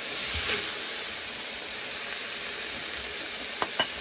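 A large wok of stir-fried bean sprouts and glass noodles sizzling with a steady hiss as it is dished out, with a couple of light spatula clicks near the end.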